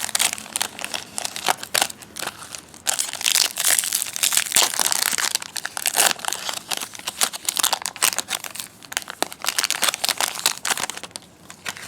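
Wrapper of a trading card pack crinkling and crackling as it is handled and torn open, a dense run of sharp crackles for about twelve seconds.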